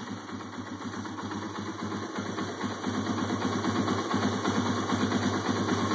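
Yamaha TW200's single-cylinder four-stroke engine idling steadily with an even beat. Its valve lash is freshly set, and it runs with no valve ticking or other odd noises.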